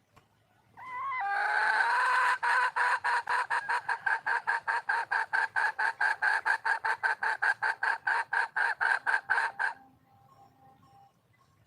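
Red junglefowl hen calling: a long call that opens with a wavering note about a second in, then breaks into a rapid, even run of pulses, about six a second, for some seven seconds before stopping abruptly. Faint calls follow near the end.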